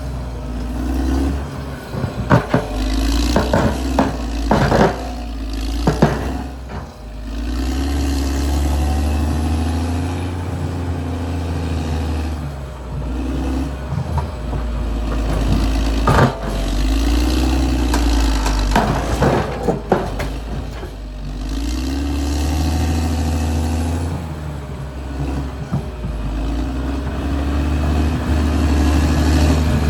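Caterpillar D6R XL bulldozer's diesel engine running under load, its pitch rising and falling. Clusters of sharp metallic clanks come a few seconds in and again past the middle.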